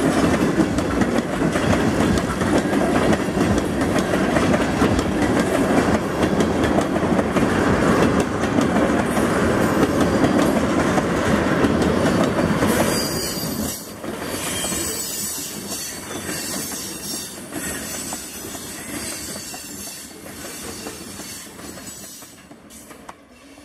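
Railroad tank cars of a long freight train rolling past: a steady rumble of steel wheels on rail, with clickety-clack over rail joints and high-pitched wheel squeal on the curve. The sound drops about halfway through and then fades away.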